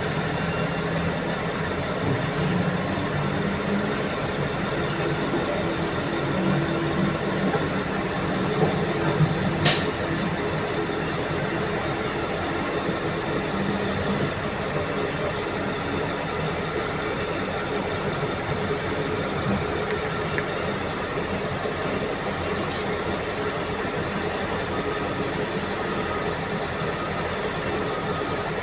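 Diesel engines of a Caterpillar 6015B mining excavator and a CAT 773E haul truck running steadily under work, with one brief sharp noise about ten seconds in.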